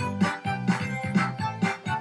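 End-credits music from a VHS tape, upbeat with a steady beat of about two beats a second.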